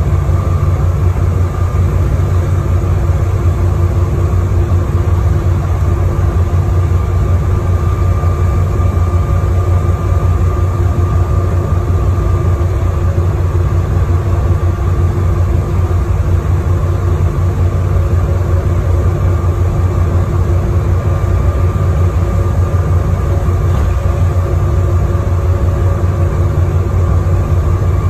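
First Wessex double-decker bus 32329 under way, heard from inside the lower deck: a steady, loud, low engine rumble with a faint high whine above it.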